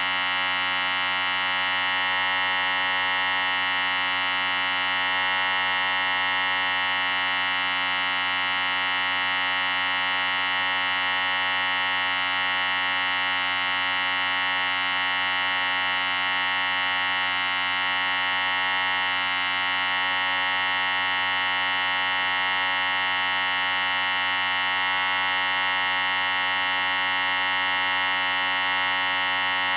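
Electric hair clippers running with a steady, unchanging buzz.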